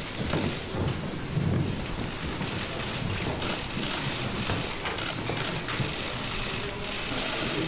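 Many press camera shutters clicking rapidly and densely at once, a steady rain-like clatter over a low room murmur.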